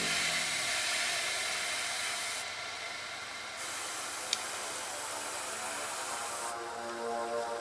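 Airbrush spraying paint with a steady airy hiss that thins briefly about two and a half seconds in and eases off near the end, with one small click about four seconds in.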